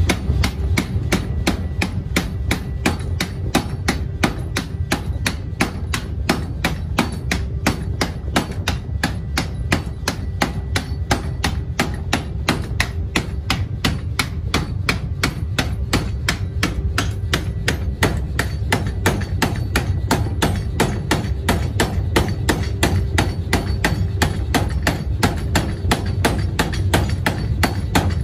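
Power hammer striking a red-hot steel bar in rapid, evenly spaced blows, about three to four a second, over the low running rumble of the machine, as the bar is forged down into a truck axle shaft.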